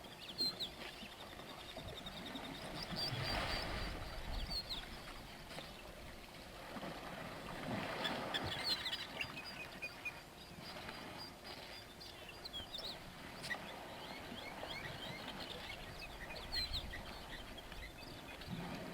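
Wild birds chirping and calling in quick, repeated notes over a rushing, swishing background noise that swells twice.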